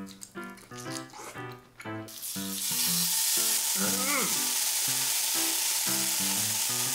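Kuroge wagyu steak hitting a hot cooking surface, with a loud sizzle that starts suddenly about two seconds in and keeps going steadily. Background music plays throughout.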